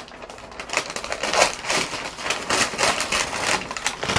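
Brown paper takeout bags rustling and crinkling as they are opened and handled, in quick irregular crackly bursts.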